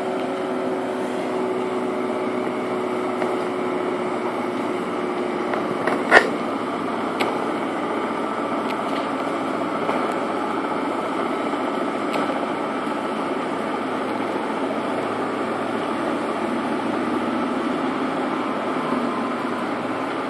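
Road milling machine (cold planer) at work: its diesel engine running and cutting drum grinding up the asphalt make a steady machine noise. A sharp knock sounds once about six seconds in.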